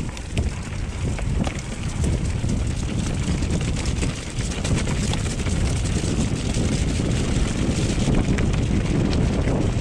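Wind buffeting the microphone of a mountain-bike camera while the bike rides over rough trail, a steady rumble with scattered clicks and rattles from the tyres and bike, growing slightly louder.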